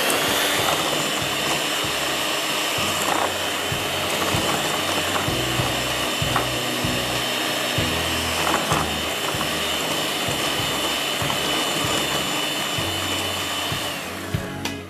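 Electric hand mixer running steadily with a high whine, its beaters whipping creamed butter, sugar and egg in a glass bowl for cake batter. The whine fades near the end.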